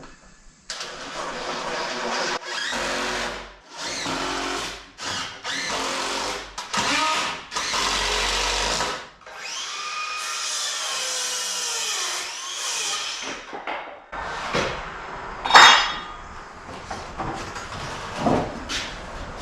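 Power drill running in a series of short trigger pulls, each a second or two long, as it drives fasteners into framing lumber. About fifteen seconds in, a single sharp knock with a brief ring stands out as the loudest sound.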